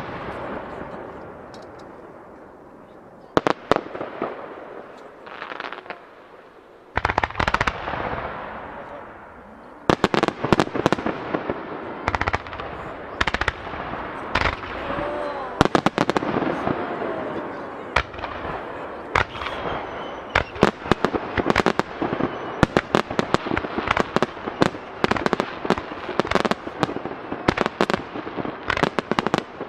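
Aerial fireworks shells bursting with sharp bangs over crackling: a few scattered bangs in the first seconds, then from about ten seconds in a rapid, near-continuous barrage.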